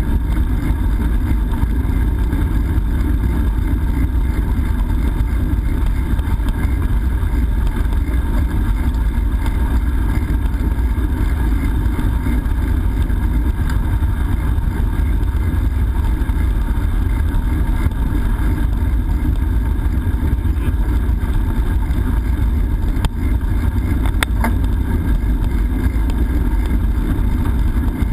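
Steady wind rumble buffeting a GoPro's microphone while riding a bicycle, mixed with tyre noise, with a couple of faint clicks near the end.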